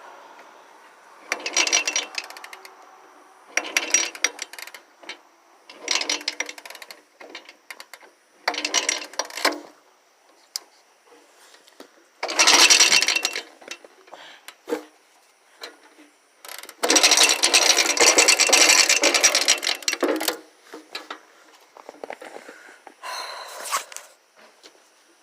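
Suzuki 125 two-stroke motorcycle being kicked over again and again, a clattering burst of about a second each time with a longer one of about three seconds partway through, without the engine catching. It is a cold start, and the bike won't fire.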